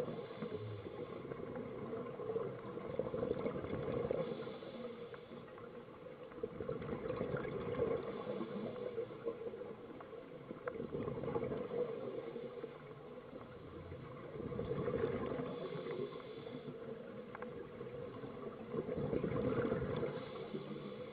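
Scuba divers' exhaled bubbles heard underwater, a bubbling rush that swells and fades about every four seconds with each breath, over a steady underwater hiss.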